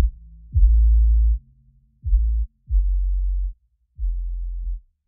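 Background electronic music: a run of deep synth bass notes, each opening with a quick falling sweep and held for under a second, with short gaps between them and growing quieter toward the end.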